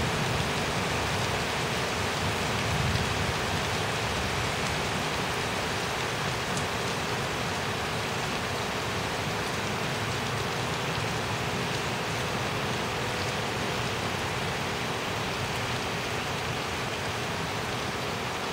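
Steady heavy rain falling and splashing during a thunderstorm, with a low rumble that fades over the first few seconds.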